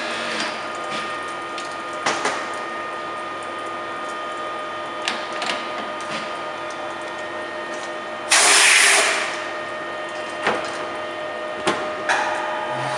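Deckel FP 4 NC milling machine running with a steady whine and scattered clicks, then a loud rush of noise about eight seconds in that lasts about a second. Near the end a new, higher tone comes in.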